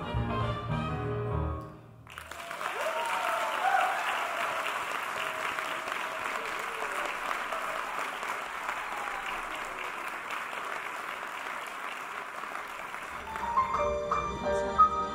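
Upbeat dance music ends abruptly about two seconds in. Audience applause follows and keeps up steadily for about ten seconds. New music begins near the end.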